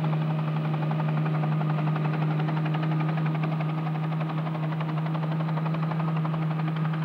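Light helicopter in flight: a steady engine drone with a rapid, even chop from the rotor.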